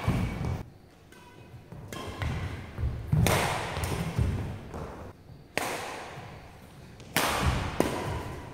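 Badminton rally on an indoor court: sharp racket hits on the shuttlecock about every two seconds, each ringing on in the hall, with thuds of footsteps on the court between them.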